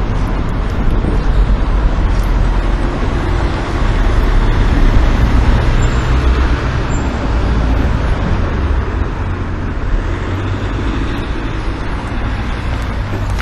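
Road traffic going by, with a vehicle passing close and loudest about five seconds in.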